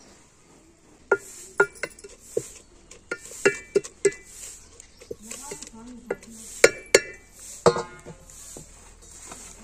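Sharp metallic clinks and knocks on an aluminium cooking pot, about a dozen irregular strikes with short ringing, as handfuls of chopped mustard greens are pushed down into it. The loudest knocks come close together near the end.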